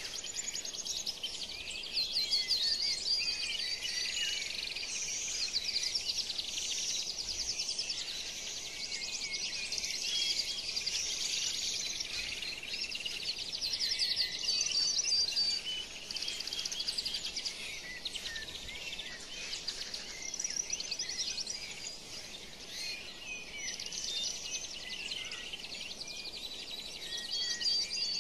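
A dense chorus of many small birds chirping and trilling rapidly and continuously, with short high whistles scattered through it.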